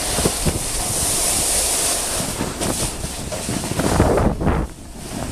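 Wind rushing over the microphone of a camera carried by a snowboarder on the move, mixed with the hiss of the snowboard sliding over snow. A few louder gusts of buffeting come about four seconds in.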